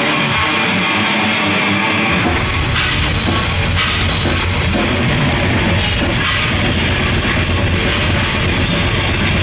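Live heavy metal band playing loud: distorted electric guitars and drum kit. About two seconds in, heavy bass and kick drum come in underneath.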